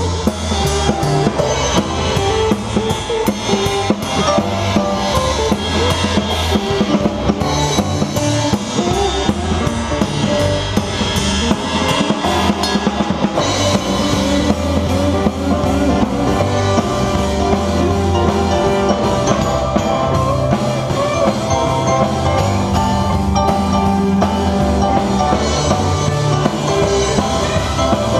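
A blues band playing live: a drum kit with kick and snare to the fore, a stepping bass line underneath and bending melodic lines above.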